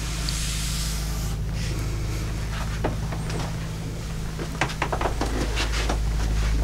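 A steady low hum, with scattered light clicks and knocks about halfway through.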